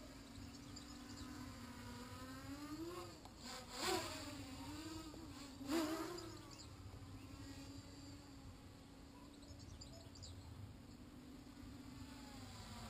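Flyduino Nanoquad's tiny motors and propellers buzzing in a high, insect-like whine, its pitch wavering up and down. About four and six seconds in, it swells to its loudest as the quad passes close.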